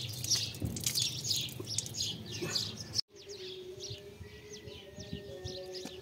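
Small birds chirping and twittering in quick, dense calls. About halfway through the sound cuts off abruptly, then resumes with sparser chirps over a faint steady hum.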